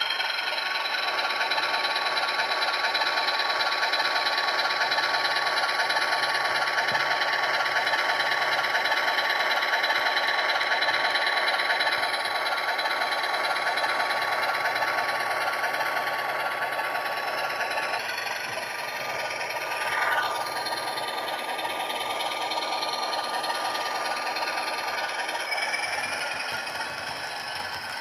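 Model Baldwin RF-16 A and B diesel units running on track: the DCC sound decoder plays a diesel engine sound over the steady whir and rattle of the two motors and the wheels. A brief rising-and-falling tone comes about twenty seconds in.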